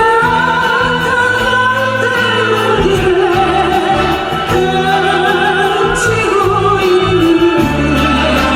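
A singer holding long, wavering notes over a steady instrumental accompaniment.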